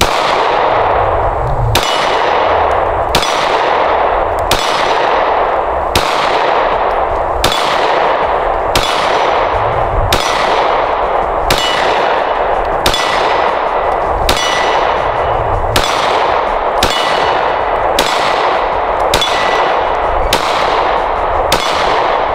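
Glock 19 9mm pistol fired in slow, steady single shots, about sixteen of them, roughly one every second and a half. Each report is followed by a metallic ring that fades away.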